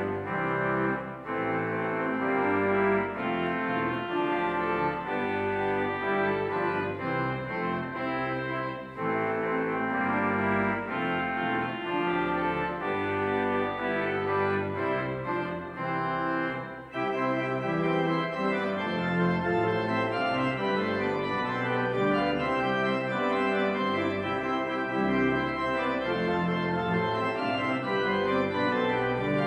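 Organ playing a postlude: full, sustained chords that change every second or so, with brief breaks about a second in and again past the middle.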